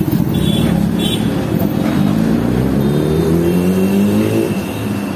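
Sport-bike engine accelerating, its pitch rising steadily for about two and a half seconds before dropping off suddenly, over a low engine rumble.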